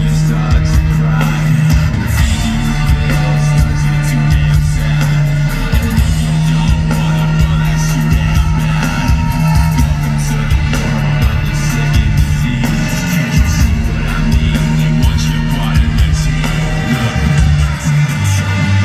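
Live rock band playing loud through the PA: drums, electric guitar and a singer's vocals.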